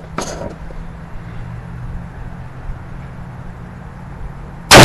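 A shotgun shot near the end, very loud and overloading the recording, after a few seconds of low steady hum with a single faint click shortly after the start.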